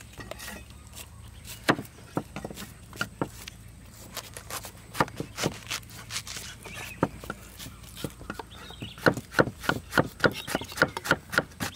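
Cleaver slicing a banana blossom on a round wooden chopping board: scattered knocks of the blade at first, then from about nine seconds in a steady run of quick chops, four or five a second.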